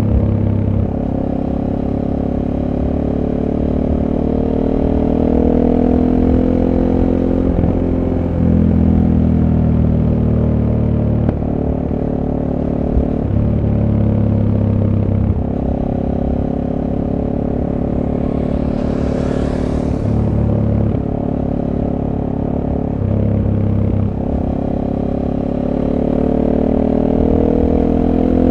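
SWM Superdual T's single-cylinder engine with its stock exhaust, heard on board while riding: the engine note rises and falls with the throttle through curves, with several short dips in the note. A brief rushing noise comes about two-thirds of the way in.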